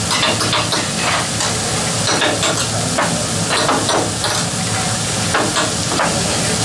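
Vegetables, fried rice and chicken sizzling steadily on a hibachi steel griddle, with frequent short, irregular clicks and scrapes of the cook's metal utensils and shakers against the grill.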